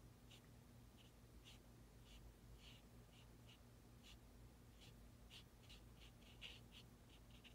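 Faint, irregular scratching of a paintbrush stroking and dabbing watercolor paint onto paper, in short strokes a few times a second, over a low steady hum.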